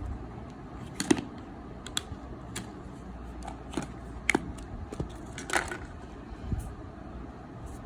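Irregular clicks and taps from handling a smartphone and its packaging, about eight distinct ones, over a steady low hum.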